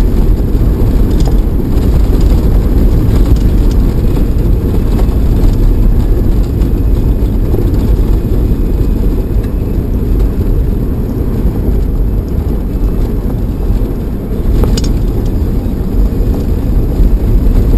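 A 4x4 driving on a stony desert track: a loud, steady low rumble of engine and tyres on gravel, with one sharp knock late on.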